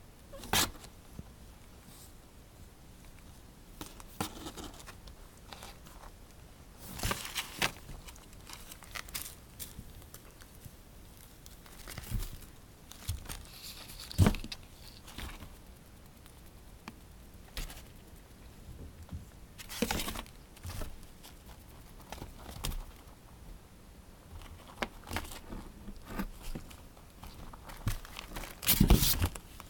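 Kittens moving about and playing: scattered crinkling and rustling with light taps and knocks, a sharp knock about fourteen seconds in and a louder cluster of noise near the end.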